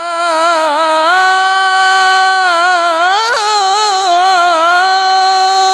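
A man singing Arabic Islamic devotional chant (inshad) solo, drawing out the vowel of 'rida' in one long melisma with wavering ornaments. The pitch steps up about a second in and makes a quick rise and fall just past the midpoint.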